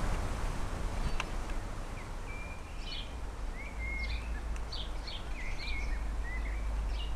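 Small garden birds chirping, with a string of short calls and brief whistled notes from about two seconds in, over a steady low background rumble.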